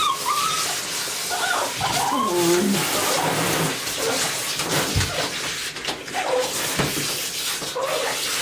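A Lhasa Apso whining and crying in short, wavering cries several times while being bathed, the clearest about two seconds in, dropping in pitch. Under it runs a steady hiss of running bath water.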